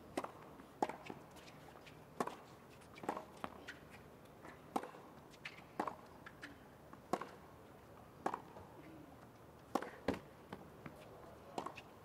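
Tennis rally on a hard court: a run of sharp knocks about a second apart as the racket strikes and ball bounces follow one another.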